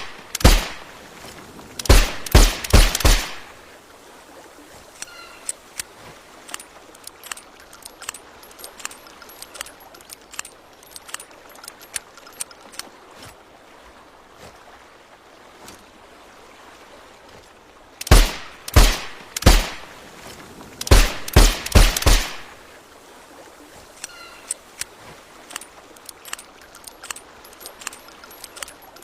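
Suppressed Nagant M1895 revolver firing: four quick shots about two seconds in, then after a long pause of faint clicking, seven more shots in two quick groups of three and four.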